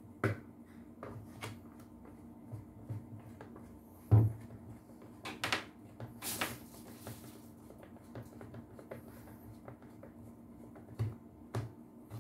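Scattered clicks and knocks of a handheld vacuum cleaner's plastic housing being handled and fitted back together, with a sharp knock about four seconds in and a brief scraping rustle around six seconds.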